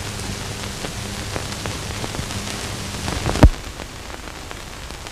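Surface noise of an old optical film soundtrack: steady hiss with scattered crackles and clicks, and one loud pop about three and a half seconds in.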